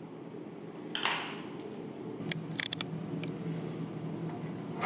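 Tool being fitted by hand into a CNC router spindle: a short hiss about a second in, then several sharp metallic clicks, over a steady low hum.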